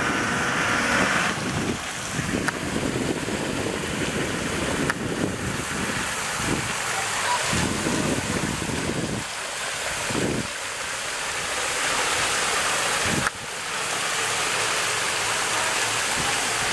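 Muddy water splashing and sloshing around a 4x4 SUV's wheels as it drives slowly out of a flooded mud hole, with wind buffeting the microphone.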